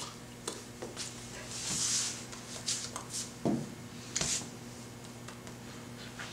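Soft taps and brushes of hands against the body and clothing while signing, with a brief breathy hiss about two seconds in, over a steady low hum.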